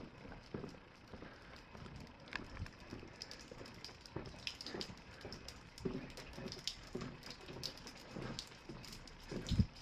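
Footsteps on a paved street at a walking pace, with a louder thump near the end.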